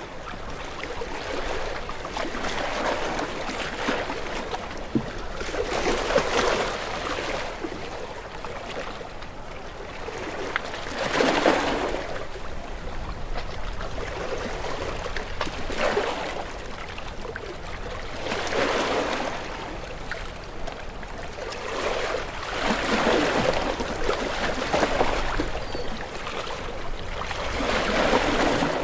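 Sea waves breaking and washing in, a swell of surf rising and falling every three to five seconds.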